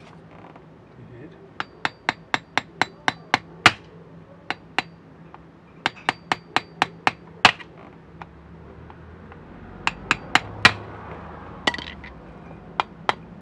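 Small hammer tapping in quick runs of several strikes, about three a second, with a light metallic ring, driving plastic pins flush to fasten parts of a Mercedes-Benz blower motor's housing.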